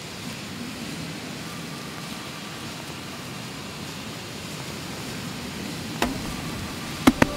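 Steady outdoor background noise, an even hiss with a low rumble under it, broken by a knock about six seconds in and two sharp clicks just before the end.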